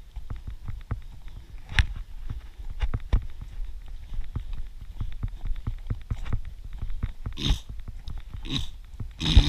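Running footfalls on a dirt forest trail: quick, uneven thuds and crunches a few times a second, with a few louder, hissier bursts near the end.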